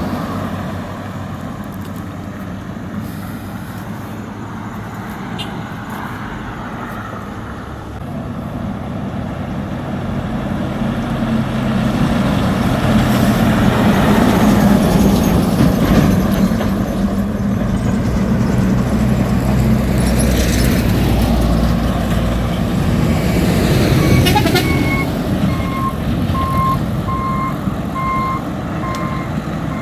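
Heavy diesel truck labouring uphill under load, its engine growing louder as it draws close about halfway through and then easing off. Near the end an evenly repeating beep starts and keeps going.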